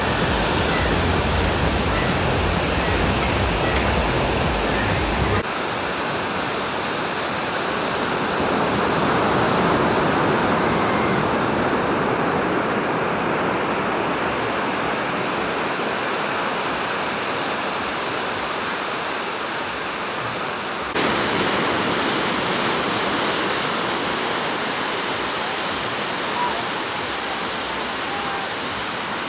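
Steady wash of sea surf on the beach, with a low rumble for the first five seconds. The sound changes abruptly about five seconds in and again about twenty seconds in.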